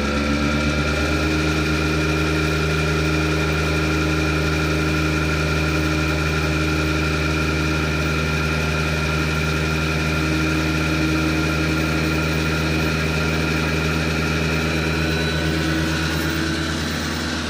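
Electric-motor-driven transfer pump of a mobile diesel fuel polishing system, run through a variable frequency drive: it rises in pitch as it comes up to speed at the start, then runs steadily at high flow with a steady whine.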